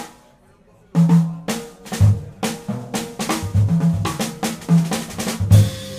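Jazz drum kit solo: one sharp accent, a pause of about a second, then a busy, uneven run of snare, tom and bass drum strokes under ringing cymbals.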